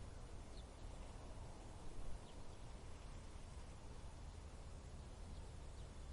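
Faint, steady desert wind with a low rumble, with a few short, faint high chirps scattered through it.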